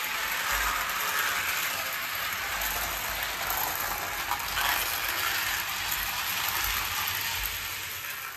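Toy train locomotive running on its track: a steady mechanical whirring and rattling from its small motor, gears and wheels.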